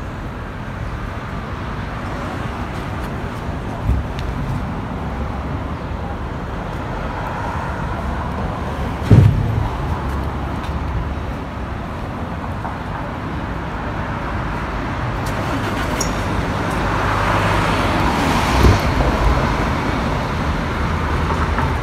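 Steady background traffic noise with a low rumble, swelling for a few seconds near the end as if a vehicle passes. A few dull thumps stand out, the loudest about nine seconds in.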